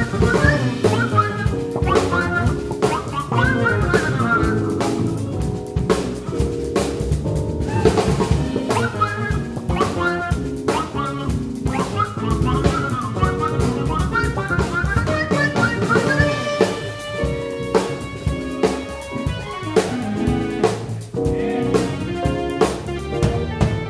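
Live band music: a trumpet playing the melody over a busy drum kit and two electric bass guitars.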